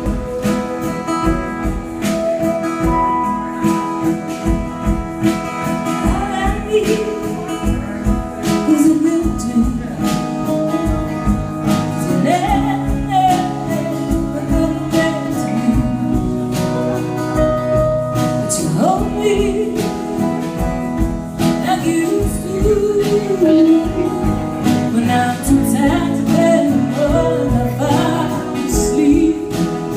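A band performing live: strummed acoustic guitar with singing, a steady beat throughout.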